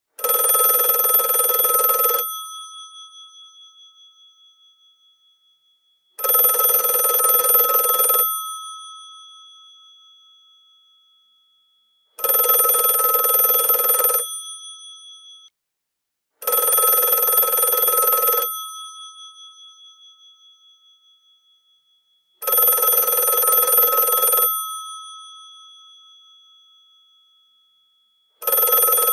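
GPO 746 rotary telephone's electromechanical bells ringing in loud bursts of about two seconds, roughly every six seconds. After each burst the gongs keep ringing and fade away over several seconds.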